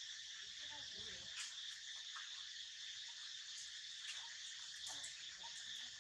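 Steady insect chorus, a continuous high buzzing with one tone standing out, and a few faint ticks over it.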